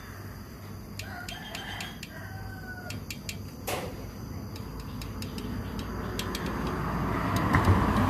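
A bird gives one drawn-out call, about a second and a half long, over scattered sharp metal clicks and taps from hand tools working on the small engine's valve gear. A steady noise swells louder over the last few seconds.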